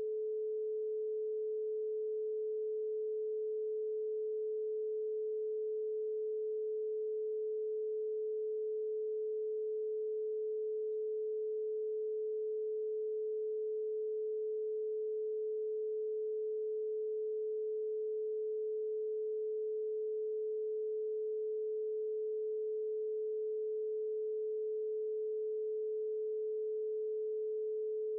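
A single steady electronic sine tone at one unchanging mid pitch, a little above 400 Hz, generated as a brainwave-entrainment tone.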